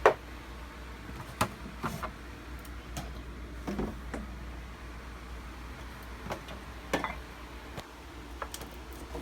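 Scattered clunks, taps and knocks of items and parts being handled and pulled out of a refrigerator, the loudest knock right at the start, over a steady low hum.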